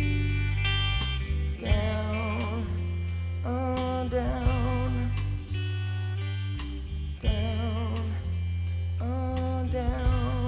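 Music: a wavering melody line with strong vibrato over sustained low bass notes, with repeated percussive hits.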